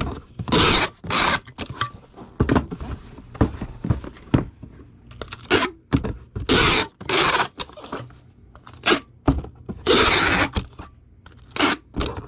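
Cardboard Priority Mail boxes being folded, fitted together and taped, a string of short scraping and tearing noises with a longer one about ten seconds in.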